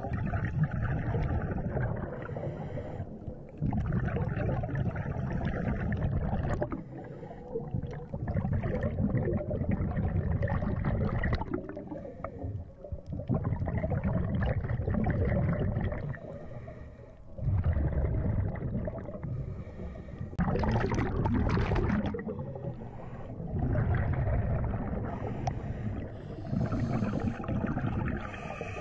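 Scuba diver breathing through a regulator underwater: exhaled bubbles rumble and gurgle in long bursts of a few seconds, broken by short quieter gaps for each breath in, in a slow repeating cycle.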